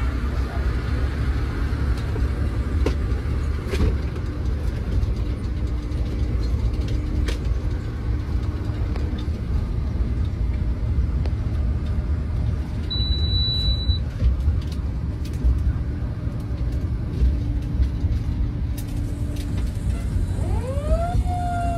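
Fire engine driving along, heard from inside its crew cab: a steady low rumble of engine and road noise. A short high beep sounds once about halfway through, and near the end a siren starts winding up, rising in pitch.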